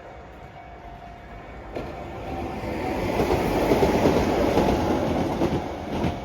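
Keihan Ishiyama-Sakamoto Line electric train passing over a level crossing. Its sound starts suddenly about two seconds in and swells to a loud clickety-clack of wheels over the rail joints, then drops away near the end.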